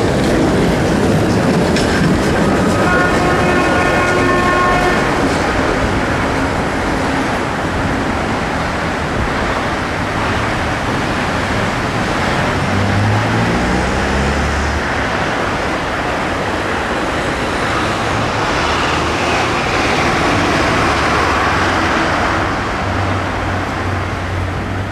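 Trams running on a street-side track amid passing road traffic, a steady rumble of wheels and engines, with a held horn tone for about two seconds near the start.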